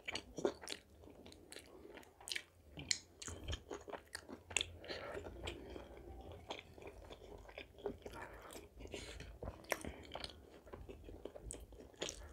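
A person chewing food close to the microphone, with many irregular sharp mouth clicks and smacks.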